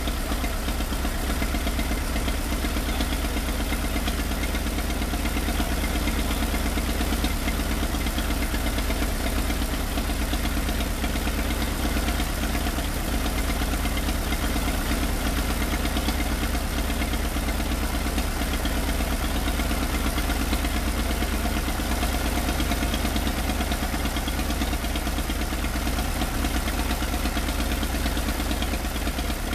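IFA Pionier tractor's two-cylinder diesel engine idling steadily with an even, low chugging beat.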